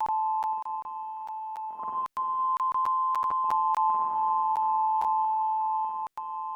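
Synthesizer patch (Arturia MiniBrute 2 with VCV Rack) holding two close, steady beeping tones, peppered with irregular sharp clicks and pops. The pops are glitches from the setup, and the sound cuts out briefly twice.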